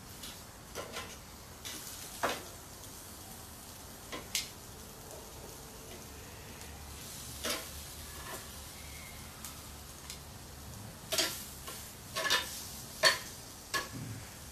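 Vegetables sizzling on a hot barbecue grill with a faint steady hiss, while metal tongs click and scrape against the grill as the pieces are turned and shifted. The clicks come singly at first and bunch together near the end.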